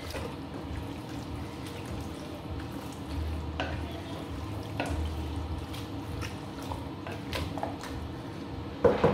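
Wooden spoon stirring wet spinach and meat stock in a stainless steel pot, the liquid sloshing steadily, with occasional light knocks of the spoon against the pot. There is a louder clatter near the end.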